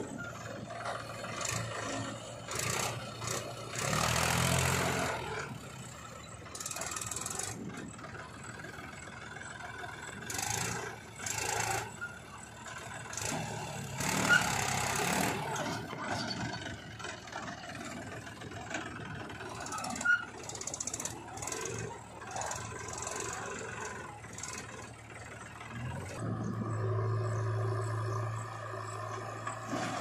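Diesel engines of a JCB 3DX backhoe loader and a Mahindra tractor running while the backhoe loads soil into the tractor's trailer. There are two loud rushing bursts, one about four seconds in and one around fourteen seconds, and sharp metallic knocks around fourteen and twenty seconds. Near the end a steady, louder engine drone sets in.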